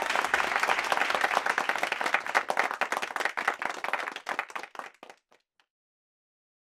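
A crowd applauding, the clapping thinning out and fading away about five seconds in.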